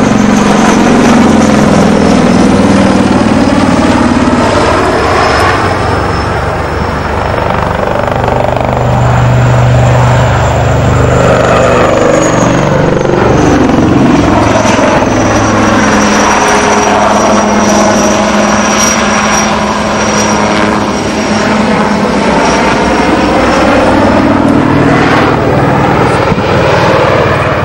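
HAL Light Combat Helicopter with twin Shakti turboshaft engines flying aerobatic manoeuvres: a continuous rotor beat under a high turbine whine. The sound swells and shifts in pitch as the helicopter sweeps past.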